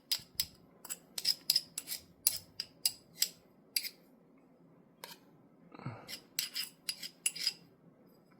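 Light metallic clicks and taps from small revolver parts and tools being handled during reassembly: a quick run of clicks, a pause, a short scrape, then another cluster of clicks.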